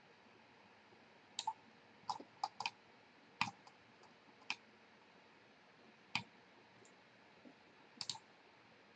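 Computer mouse button clicks: about a dozen short, scattered clicks, some in quick pairs, as the mouse drags and releases on screen.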